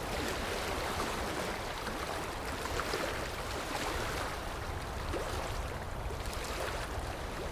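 Sea waves washing in steadily, a continuous rushing that swells and eases gently.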